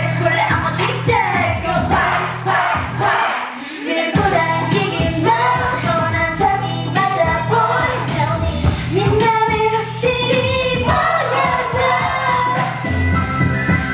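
K-pop dance track with female vocals over a steady beat. The bass and beat drop out for about a second, a little after three seconds in, then come back under the singing.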